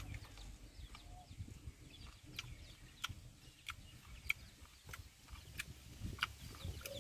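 Faint farmyard chickens: a hen gives a short soft cluck about a second in, among scattered brief high chirps and clicks.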